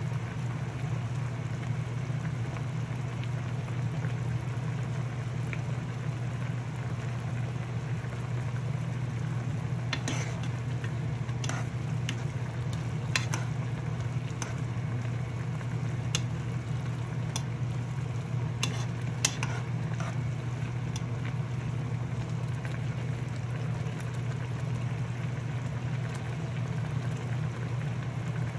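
Food cooking on a stove: a steady hiss over a low hum, with scattered light clicks through the middle of the stretch.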